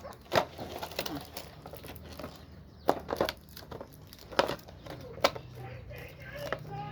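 Packaging being handled during an unboxing: crinkling and rustling with scattered sharp clicks and knocks.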